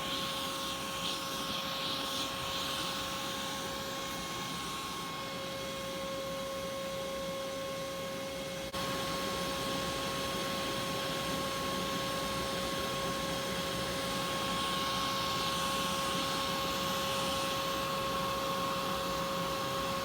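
Steady machine drone with a constant whine over a hiss. It dips briefly about nine seconds in, then runs on a little louder.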